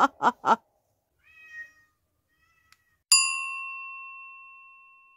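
A quick run of short meow-like squeaks ending about half a second in, then a faint meow. About three seconds in comes a single bright bell ding, the loudest sound, which rings and fades away slowly over about two seconds.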